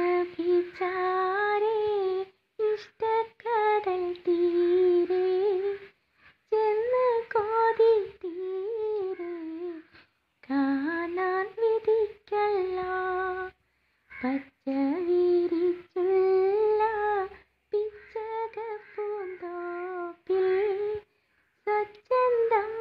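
A solo voice singing a Malayalam madh song, a devotional song in praise of the Prophet, without accompaniment. The melody comes in phrases of a few seconds, each broken off by a short silence.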